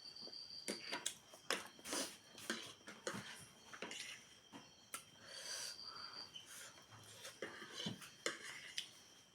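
Close-up eating sounds: irregular chewing, mouth clicks and smacks, with breathing.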